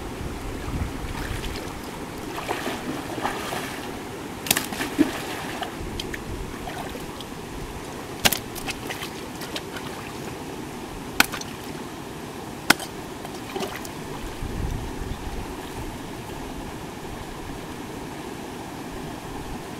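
Shallow stream running over rocks, with water splashing and stirring as hands work in it, and a few sharp clicks or knocks scattered through.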